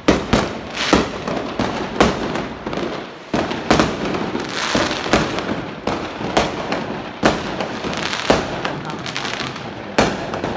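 Fireworks going off in quick succession: about ten sharp bangs at uneven intervals, roughly one a second, with steady crackling between them.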